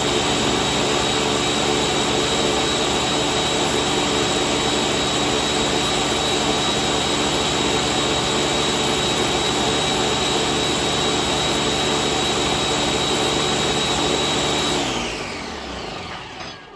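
Blender running steadily on its high smoothie setting, churning a green smoothie, with a steady high whine. About fifteen seconds in the motor stops and spins down, its pitch falling as the sound fades out.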